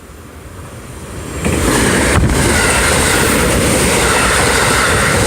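Marine Liner electric rapid train passing at speed. The rumble of wheels on rail grows as it nears, then about a second and a half in it becomes a loud, steady rush of wheel and rail noise and wind.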